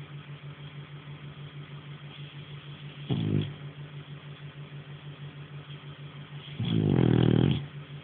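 French Bulldog snoring: a short loud snore about three seconds in and a longer, louder one around seven seconds in, over a low steady drone.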